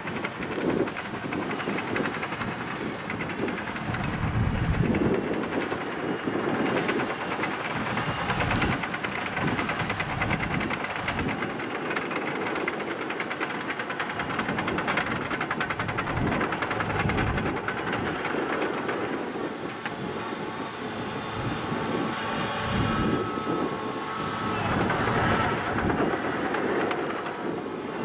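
Caterpillar 963C track loader driving with a loaded bucket: the diesel engine running under load with the steel tracks clattering continuously.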